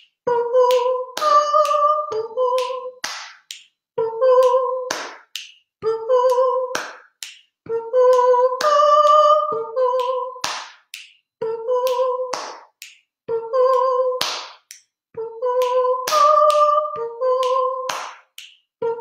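A voice singing a short repeating phrase of clipped notes, mostly on one pitch with an occasional step up, in a steady rhythm, each group followed by a sharp percussive hit. The phrase repeats about every two seconds, a rhythm-and-melody improvisation pattern.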